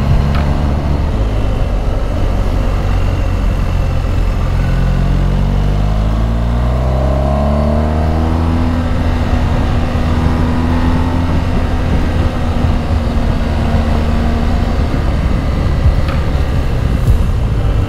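Motorcycle engine running under way, pulling steadily. Its pitch rises over about four seconds a quarter of the way in, then holds steady.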